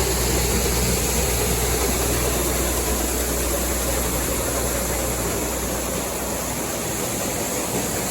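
Soybeans running out of a wagon through a grain screener: a steady rushing hiss, like flowing water, over a low engine hum that fades about six seconds in.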